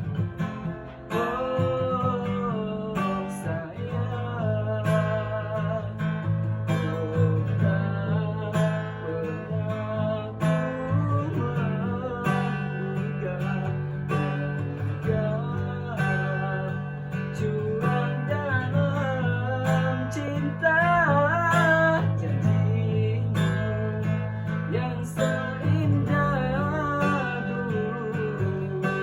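A voice singing a melody over strummed acoustic guitar.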